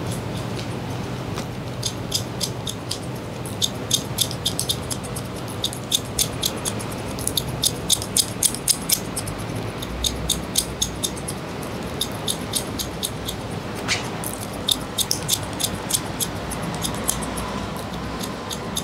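Barber's scissors snipping hair: runs of quick, crisp snips, several a second, with short pauses between runs.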